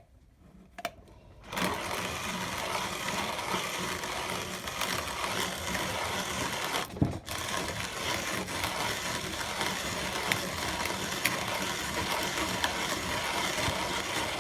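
Late-1930s Zassenhaus 334 Record manual conical burr coffee grinder being hand-cranked, grinding coffee beans at its finest setting, burrs just touching. After a few clicks it starts about a second and a half in and runs as a continuous grinding, with a brief break about halfway through.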